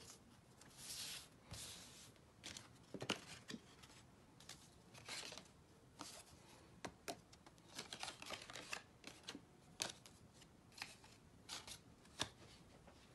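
Black cardstock panels of a folding paper gift box being handled and unfolded: faint rustling swishes with light taps and clicks scattered throughout.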